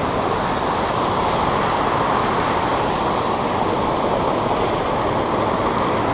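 Creek water rushing steadily over a small fall close by, an even, unbroken noise.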